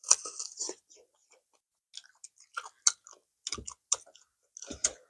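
Close-miked chewing: irregular wet smacks and clicks of a mouth working on food, with a short pause about a second in.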